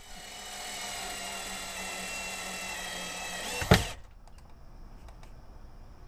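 12-volt cordless drill/driver running steadily, driving a screw through a strip of wood, then stopping with one sharp knock about three and a half seconds in.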